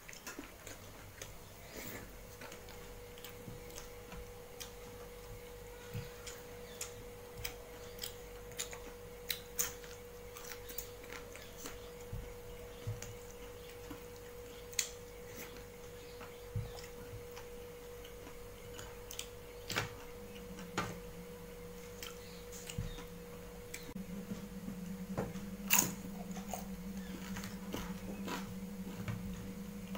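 Eating by hand: fingers mixing rice and dal on a steel plate, and chewing, heard as scattered small clicks and ticks. A faint steady hum runs underneath, and a second, lower hum comes in about two-thirds of the way through.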